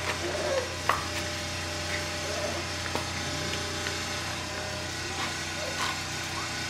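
Puppies scuffling and tugging at a fleece toy, their claws clicking and scraping on the hard floor, with one sharp click about a second in. A steady low hum runs underneath.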